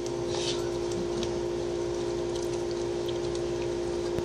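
Steady electric hum from the pump of a stainless-steel pet water fountain, with a corgi's tongue now and then licking and clicking against an empty plastic food bowl.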